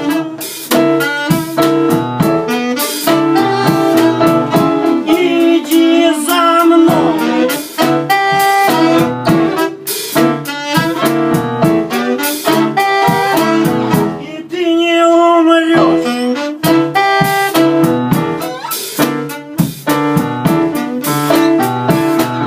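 Live jazz band playing an instrumental break: a saxophone leads with wavering held notes over electric keyboard and a drum kit keeping a steady beat.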